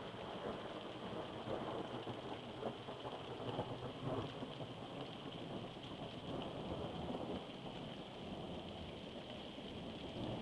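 Steady rain falling in a thunderstorm: a dense crackle of small drop hits over an even hiss.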